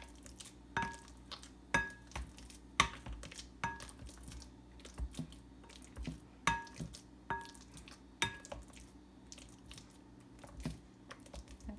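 Potato masher mashing ripe bananas in a bowl, knocking against the bowl in sharp clinks about once a second, several ringing briefly.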